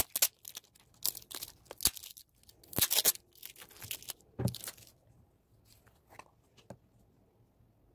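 Plastic wrapping crinkling and being torn off a slime tub by hand, in a run of quick crackly bursts that stop about five seconds in, followed by a few faint clicks.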